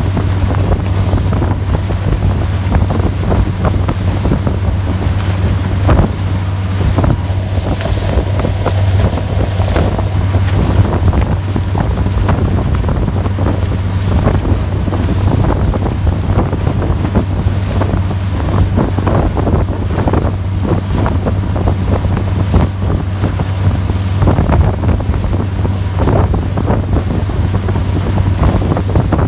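Motorboat running at speed: a steady low engine drone under loud rushing and splashing water from the wake and spray, with heavy wind buffeting on the microphone in frequent gusts.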